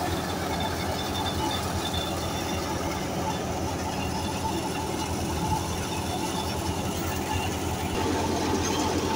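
Tractor-powered wheat thresher with blower running steadily under load, a continuous mechanical drone over the low hum of the Massey Ferguson 375's diesel engine; it grows a little louder near the end.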